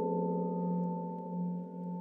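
Amplified vibraphone ringing in sustained, slowly fading tones at several pitches, held on by feedback between microphones inside its resonators and transducers on its bars. A low tone swells and ebbs twice.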